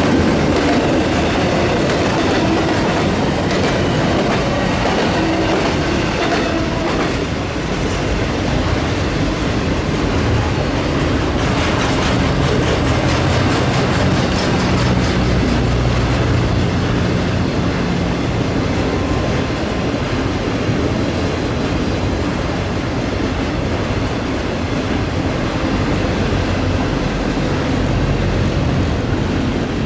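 Intermodal freight train's well cars and spine cars, loaded with containers and trailers, rolling steadily past with their wheels rattling on the rails.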